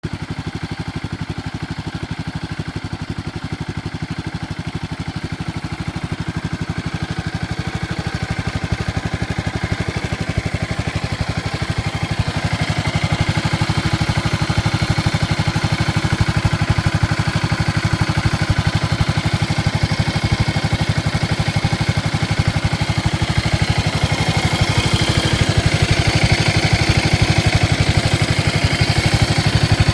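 Yamaha SRX600's single-cylinder four-stroke engine idling steadily as it warms up on its first run after winter storage, gradually getting louder over the half-minute.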